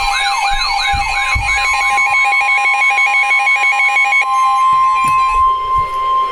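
Emergency alert tones for a severe thunderstorm warning, several electronic alarm tones overlapping: a fast sweeping wail, a rapid two-note warble and steady beeps. About four seconds in they cut out, leaving one steady high-pitched tone.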